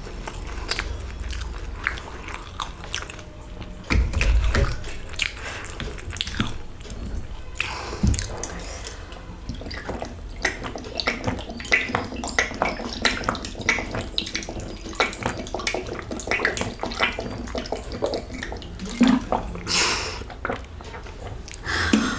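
Close-up chewing of a samosa, with wet, crackly mouth sounds and small bites, plus a couple of dull thumps about four and eight seconds in.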